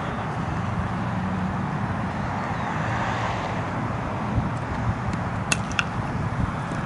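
Steady open-air rumble of wind and distant traffic. About five and a half seconds in come two sharp knocks, a third of a second apart, as the cricket ball is delivered and struck by the batsman's bat.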